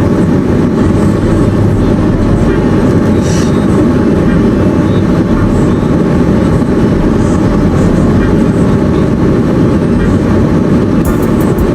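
Steady, loud rumble of road and wind noise from a moving car, heavy in the low end.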